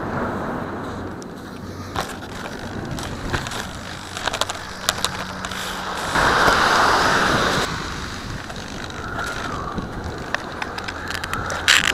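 Handling noise on the FPV plane's onboard camera as the landed plane is picked up and carried: scattered knocks and clicks, with a louder rushing burst lasting about a second and a half, about six seconds in. Wind noise on the microphone throughout.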